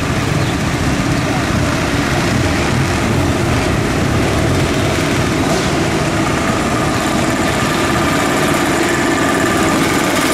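Many small moped and motorcycle engines running together as a column of riders comes closer and passes, with a higher-pitched engine drone building over the second half.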